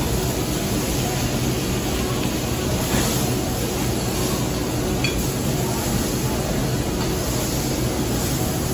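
Steady sizzling hiss of steak, chicken and mushrooms cooking on a teppanyaki griddle, with a few light clinks of the chef's spatula on the steel.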